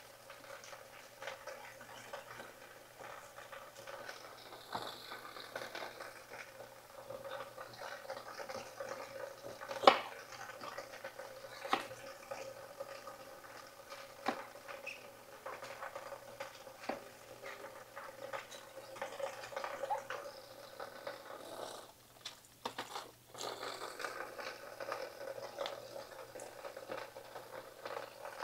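Kitchen knife cutting green bell peppers on a wooden cutting board: irregular knocks of the blade on the board, one sharper knock about ten seconds in. A faint steady hum runs underneath.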